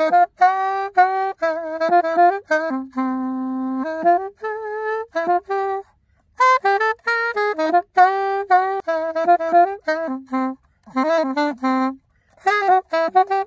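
Saxophone playing a melody in phrases of short stepping notes, with one long low held note, breaking off briefly about halfway through and again near the end.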